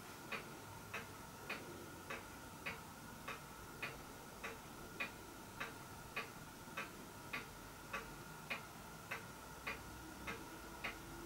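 Faint, even ticking at a little under two ticks a second, with a faint steady hum beneath it.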